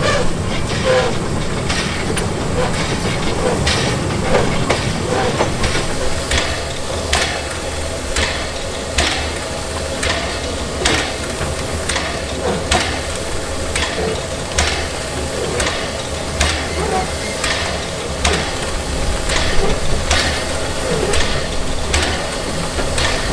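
Small steam locomotive running at low speed, heard up close: a steady running noise and hiss with sharp regular beats about once a second, clearest from about six seconds in.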